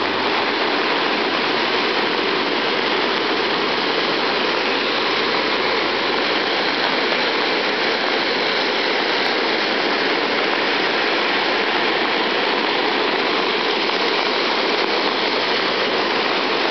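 Fast, muddy floodwater rushing down a rain-swollen roadside ditch and pouring through culverts: a steady, even roar that does not let up.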